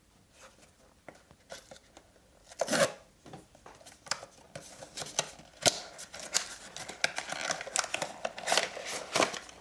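A Pop Mart blind box being opened by hand: a sharp tear about two and a half seconds in, then steady crinkling, rustling and small clicks of the packaging and the sealed bag inside.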